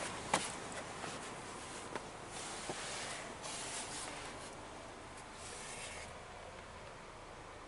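Handling noise from a handheld camera: rubbing and rustling against the body or clothing, with a sharp click about a third of a second in and two fainter clicks a little later.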